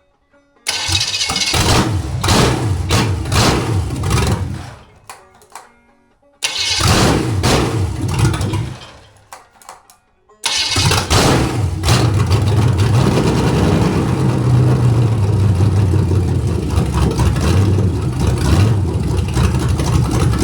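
Cold 1973 Chevy 350 small-block V8 with a big cam starting and running a few seconds before stalling, twice, then starting a third time and running on. The stalling is from the cold (fast) idle screw being set too low; the owner takes it that he backed the screw off past the point where it touches.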